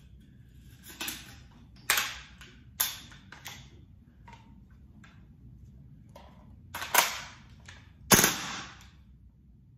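Gas blowback airsoft rifle (M4-style GBBR) being readied with a few metallic clicks and clacks, then firing twice with loud sharp cracks about a second apart as the bolt blows back onto a standard buffer.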